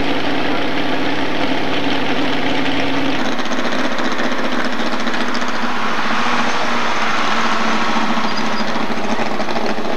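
Modified pulling truck's engine running hard under load as it drags the weight sled. About three seconds in, the sound changes abruptly to a fast, even engine rattle.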